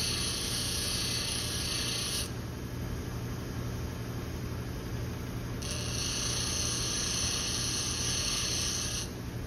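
Bench grinder motor running with a steady hum while a flat-blade screwdriver tip is ground against the wheel. The grinding hiss lasts about two seconds, stops while the tool is lifted off, and starts again a little past halfway until near the end.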